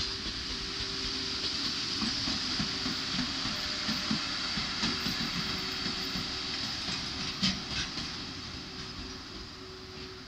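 Electric freight locomotive hauling tank-container wagons passing by, wheels clacking over the rail joints under a steady hum and rumble. A sharper clank comes about seven and a half seconds in, and the sound fades as the train draws away near the end.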